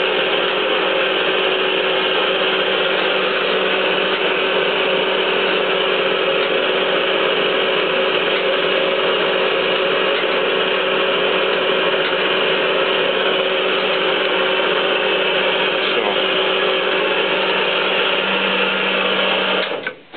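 Hydraulic pump unit of a 3B71M surface grinder running steadily during a hydraulics test run: a loud, even mechanical hum with a steady whine. It cuts off suddenly near the end.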